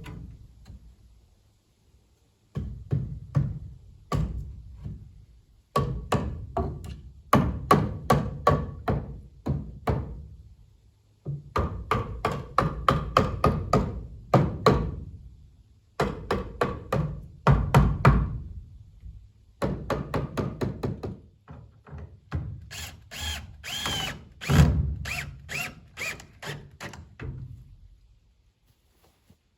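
Hammer blows in bursts of several quick strikes, about two to three a second, with short pauses between bursts; some strikes ring briefly.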